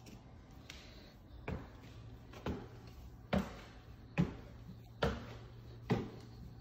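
Footsteps climbing stairs covered in luxury vinyl plank, a short knock a little under once a second, over a faint steady low hum.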